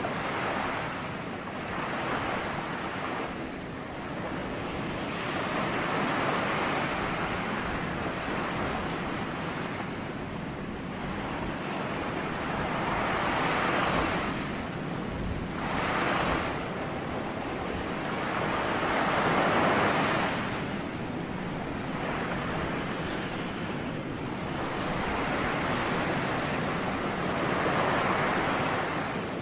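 Ocean waves breaking and washing on the shore, the surf swelling and fading in slow surges every few seconds.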